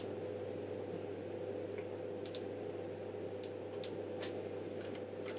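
A handful of sharp clicks from equipment controls being worked to raise the test signal's frequency, over a steady low hum.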